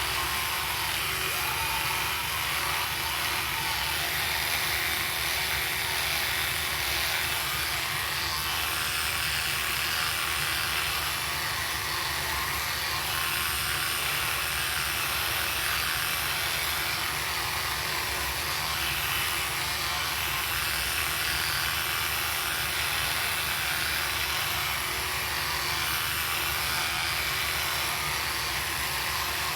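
Oral-B Smart 5000 electric toothbrush running with a steady buzz that does not let up.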